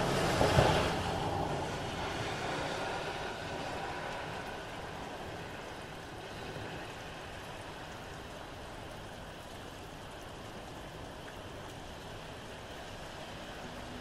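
A car passes on the wet road, its tyre hiss swelling to a peak about half a second in and fading over the next few seconds. Under it runs steady rain, with a faint frog chorus far off.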